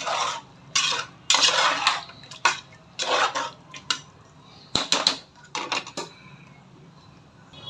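A spoon stirring and scraping around a cooking pot of thick chicken gravy as chopped coriander is mixed in, in about eight short strokes that stop near the end.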